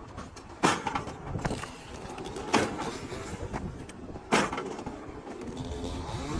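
A gear-driven mechanical log splitter running, with three sharp cracks about two seconds apart as logs are forced against the blade and burst apart, over the machine's steady running noise.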